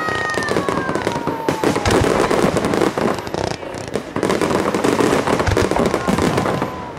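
Fireworks display: dense crackling and popping from many bursting shells. A falling whistle-like tone runs through the first two seconds.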